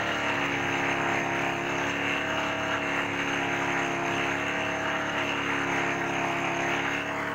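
Bajaj Pulsar 180's single-cylinder four-stroke engine running steadily at raised revs, about 4000 rpm, for a charging-system test with the lights on. The sound holds level and does not change.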